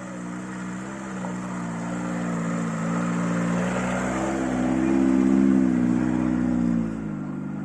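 Lada Niva VAZ-21218 Fora engine pulling under load, rising in pitch and getting louder about four seconds in, then easing off near the end.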